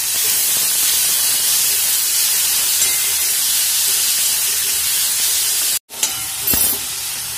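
Chopped tomato and onion sizzling in hot oil in a kadai while being stirred with a metal spoon: a steady frying hiss. Near the end the hiss cuts out for an instant, then comes back with a couple of sharp clicks.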